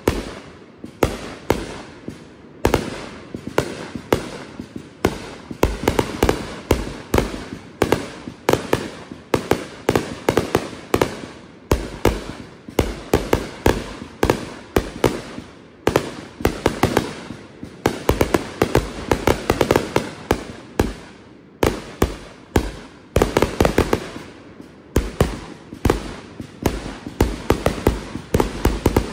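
Consumer aerial fireworks firing in rapid succession: a continuous string of sharp launch thumps and bursting bangs, several a second, with a few brief pauses.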